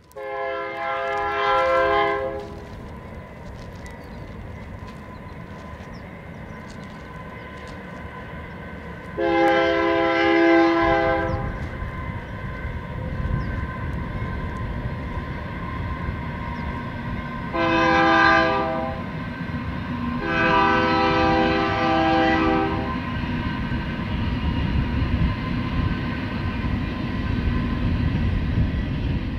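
Train horn sounding four blasts, long, long, short, long, the pattern of a grade-crossing warning, over a steady rumble that grows louder after the second blast.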